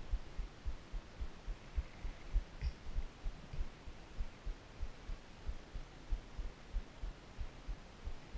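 Soft, irregular low thumps a few times a second over a faint hum: handling and body noise on a chest-mounted action camera while hands work at fishing tackle.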